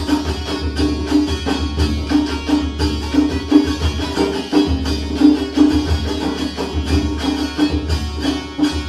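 Background folk music with a steady drum beat.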